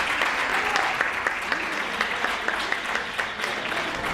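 Audience applauding, the clapping slowly thinning out.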